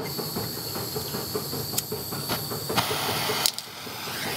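MAPP gas torch hissing, with a sharp click about three and a half seconds in, after which the hiss of the flame grows steadily louder.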